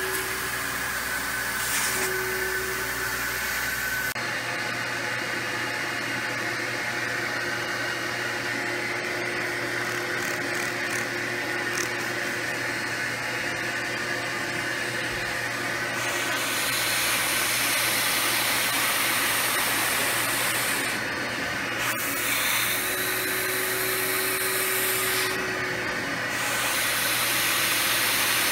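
Rug Doctor carpet-shampooer vacuum motor running, sucking through the upholstery hand tool as it is drawn over wet cloth seat fabric. The steady hiss turns brighter about halfway through and dips briefly a couple of times near the end.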